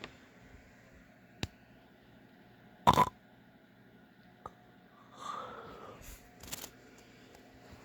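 Sleeping man snoring irregularly: a short, loud snort about three seconds in and a longer snoring breath a couple of seconds later, with a few faint clicks between, over quiet room hiss.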